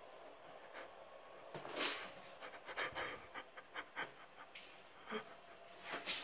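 Faint, irregular scratching and scrabbling: a cat's claws catching on a painted wall as it clings and climbs.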